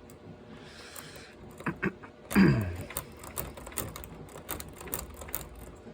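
Lock pick and tension wrench working a pin-tumbler lock: a run of small metal clicks and scrapes. A short, louder sound slides down in pitch about two and a half seconds in.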